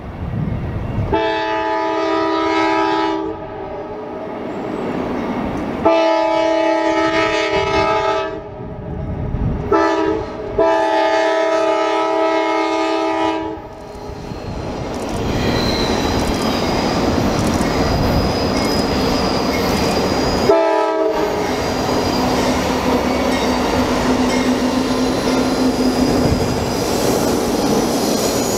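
Air horn on a Norfolk Southern GE Dash 9-44CW diesel locomotive sounding the grade-crossing signal: two long blasts, a short one and a long one, then one more short toot about twenty seconds in. In the second half the lead diesel locomotives run past with a steady rumble of engines and wheels on rail.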